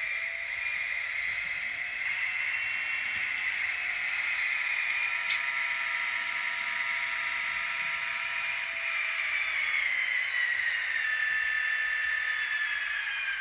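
N scale Kato SD40-2 model locomotive running with an XL Systems sound decoder: simulated diesel engine sound from a tiny speaker, thin and without bass. Its high whine rises in pitch in the first couple of seconds, holds steady, then falls over the last few seconds as the locomotive slows.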